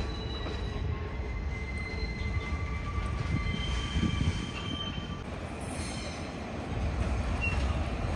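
Train wheels squealing on the rails as a train moves through the station. Thin, high squeal tones come and go at shifting pitches over a low rolling rumble, which grows louder near the end.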